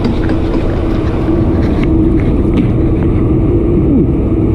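A steady mechanical hum: one held tone over a dense low rumble, with a brief dip in pitch near the end.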